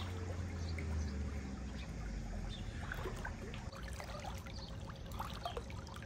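Swimming-pool water sloshing and trickling around a person wading waist-deep, with small scattered splashes and drips in the second half as he moves to the edge.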